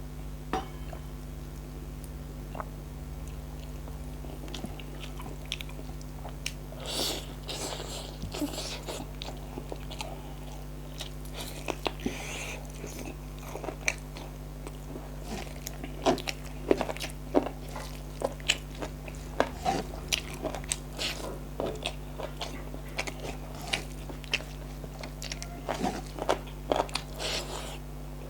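A person eating close to the microphone: biting and chewing food, with many short sharp clicks of mouth and teeth that come thicker in the second half, over a steady low electrical hum.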